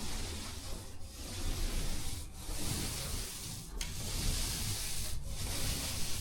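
Hand sanding in long, even rasping strokes, about one stroke every second and a half, with brief pauses between them.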